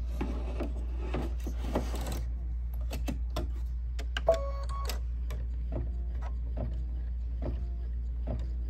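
Hands rubbing and smoothing batting on the embroidery hoop, then a short electronic beep as the embroidery machine's start button is pressed. The machine then starts stitching the batting tack-down line, with a steady run of needle ticks.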